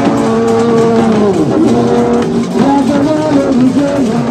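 Music of long held notes that slide down in pitch, several parts overlapping.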